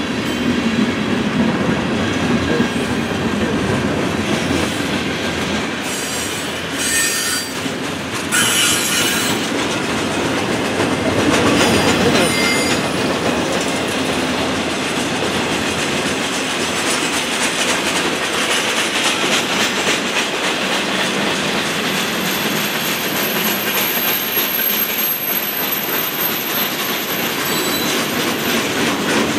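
Freight cars of a long train rolling past: steady wheel-on-rail rumble and clatter, with high-pitched wheel squeal coming in briefly a couple of times about a quarter to halfway through.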